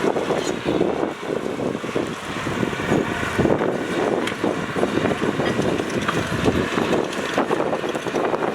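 Diesel engines of heavy earthmoving machinery running steadily, with wind buffeting the microphone.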